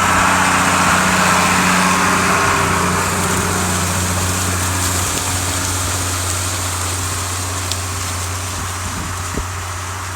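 New Holland 8160 tractor's diesel engine working steadily under load while pulling a rollover plough. The drone is loudest at the start and then slowly fades.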